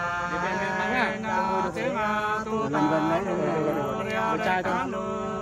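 Two men singing hát sli, a Nùng folk love-song, together in long held notes that glide slowly up and down.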